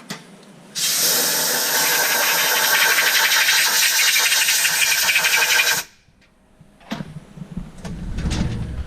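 Haas VF-3 CNC mill's umbrella tool carousel cycling on its slide, newly fitted with hydraulic shock absorbers: a loud, steady mechanical run with a strong hiss that starts about a second in and cuts off sharply after about five seconds, then a click and a low rumble near the end.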